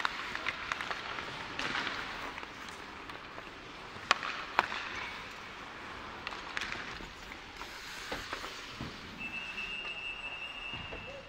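Ice hockey practice on an indoor rink: skate blades scraping and carving the ice, with several sharp cracks of sticks striking the puck. Near the end a steady high whistle-like tone sounds for about two seconds.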